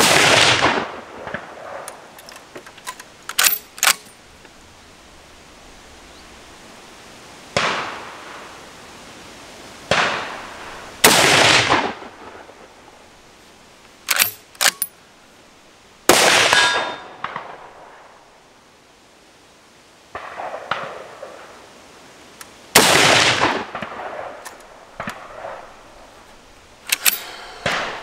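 Rifle shots from a .308 Win Merkel Helix, each ringing out with a long echoing decay, at irregular intervals; the loudest are about 11, 16 and 23 seconds in, with quieter shots among them. Between shots come quick pairs of sharp metallic clicks, the straight-pull bolt being worked back and forward.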